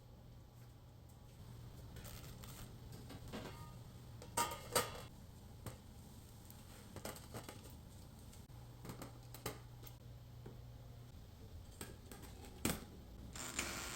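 Scattered light clicks and knocks of objects being handled, over a faint low hum, with the loudest pair about four and a half seconds in and another near the end.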